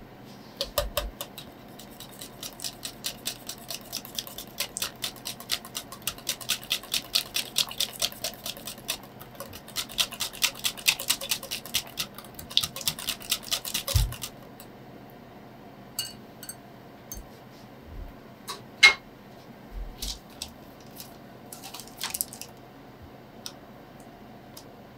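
A whisk stirring cheesecake batter in a glass bowl, its wires clicking against the glass about four times a second for some thirteen seconds. Then come scattered clinks and knocks as the bowl is handled, with one louder knock about two-thirds of the way through.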